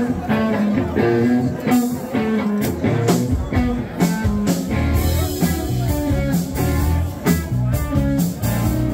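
Live blues-rock band playing: electric guitars, bass guitar and drum kit. The low end of bass and kick drum fills in about three seconds in.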